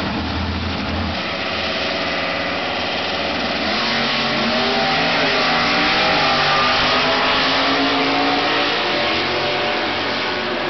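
Two drag-racing cars launching off the line and accelerating hard down the strip side by side. A low rumble gives way about a second in to engines climbing in pitch through gear changes. The sound is loudest about halfway through, then eases off as the cars get farther away.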